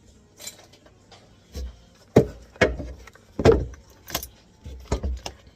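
A series of irregular knocks and clanks, some with a short metallic ring: tools and drain parts being handled and knocked about under a sink while a P-trap is taken apart.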